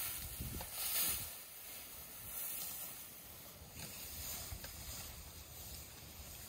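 Dry grass rustling and swishing as an elephant walks through it, with two louder surges near the start and then a softer, steady rustle.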